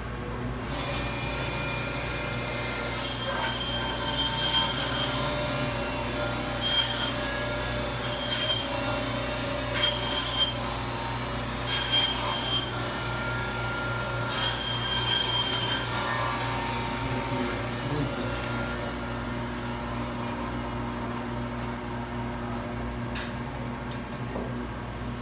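Electric meat band saw running with a steady hum, its blade giving several bursts of a high-pitched squeal as beef on the bone is pushed through it.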